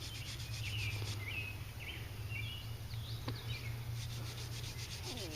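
Outdoor ambience: a bird giving short chirping calls in the middle of the stretch, over an insect's rapid pulsing call that fades out and comes back near the end, with a steady low hum underneath and one brief click about three seconds in.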